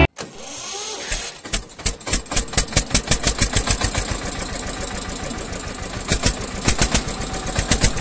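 Tractor diesel engine sound starting up and then chugging with an even beat of about five thumps a second, dubbed over a toy tractor driving off.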